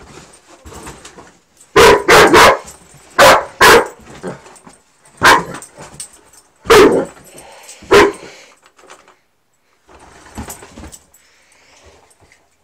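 Akita dog barking at a vacuum cleaner: about eight loud, sharp barks, some in quick pairs, then a few fainter ones near the end.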